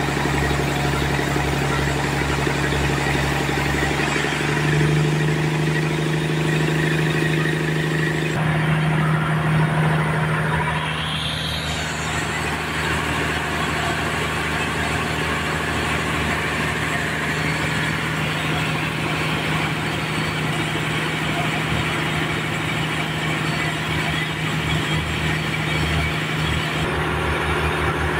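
Sawmill machinery running with a steady engine hum that shifts slightly in pitch about four seconds in.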